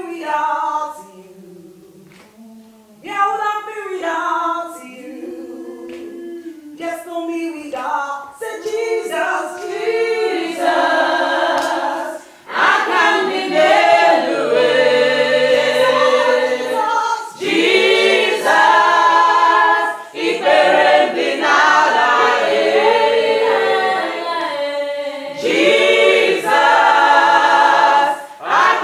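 A small group singing a worship song a cappella, with no instruments. It starts thin and quiet with few voices, then swells fuller and louder about twelve seconds in.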